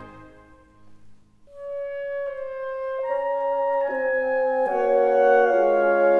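Background music: the previous piece fades out at the start, and after a short near-silent gap a slow new piece of long held notes begins about a second and a half in, adding notes as it builds.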